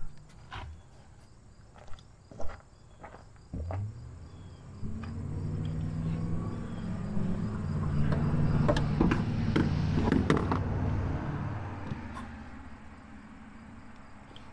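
Clicks and knocks of a car's back seat being worked loose, then a motor vehicle's engine that grows louder, holds for several seconds and fades away, as a vehicle passing by. Insects chirp steadily throughout.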